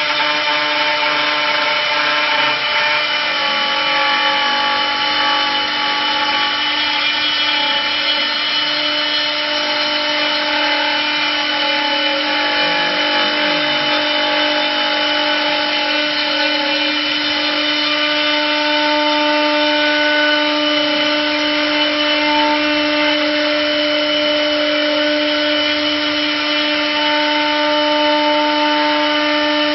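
Single-axis, two-blade automatic wood lathe running and turning a wooden spindle: a steady machine whine with several held tones over the continuous hiss of the blades cutting the spinning wood.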